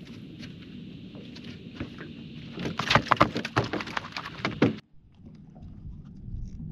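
Quick run of sharp knocks and slaps as a small landed flathead is handled on the boat floor, starting about two and a half seconds in and cutting off abruptly about two seconds later, over a low steady background.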